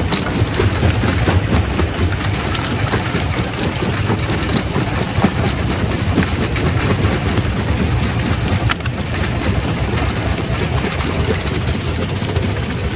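Quarry primary rock crusher running, a heavy low rumble with rocks knocking and cracking irregularly as they are crushed.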